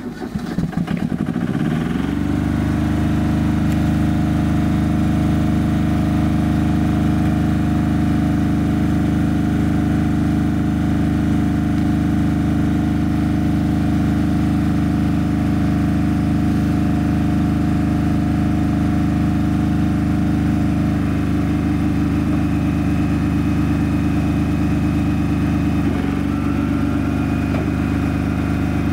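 An engine starts and, over about two seconds, comes up to a steady, even run: the power unit of a Bofors 40L70 anti-aircraft gun. Its note dips briefly and shifts about 26 seconds in, then runs on.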